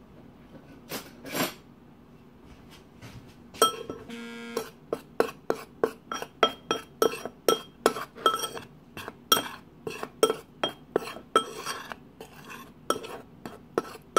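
Metal spoon clinking against a ceramic mixing bowl while stirring a dry flour-and-cornstarch coating mix. There are a couple of soft taps at first, then from a few seconds in a steady run of ringing clinks, about two a second.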